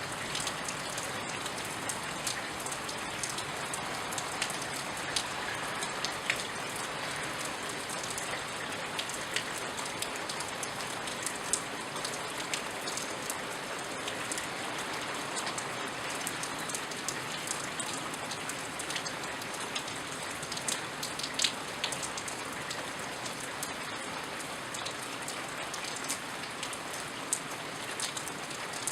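Steady rain falling, with scattered sharper drip ticks of drops hitting a surface close by.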